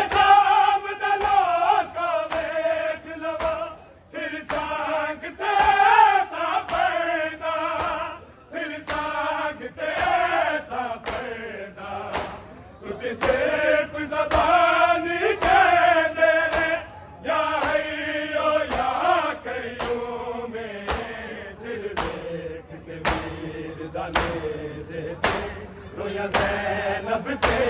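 A group of men chanting a noha, a Muharram lament, in unison. Sharp, regular strikes of matam (chest-beating) keep time at about one a second.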